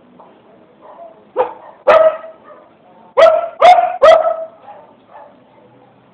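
Dog barking: a softer bark, a loud bark, then three loud barks in quick succession.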